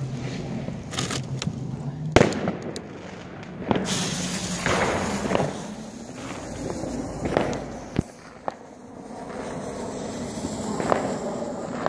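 Ground fountain fireworks catching light: short spurts of hissing sparks broken by a few sharp cracks, the loudest about two seconds in.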